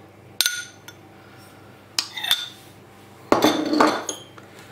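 Kitchenware clinking against a glass mixing bowl as Greek yogurt is emptied into it from a small bowl: a ringing clink about half a second in, another about two seconds in, and a louder, longer clatter a little after three seconds.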